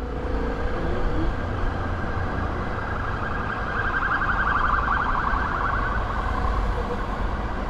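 A fast-warbling electronic siren over a steady low rumble of engine and street traffic; the warble swells around the middle and fades near the end.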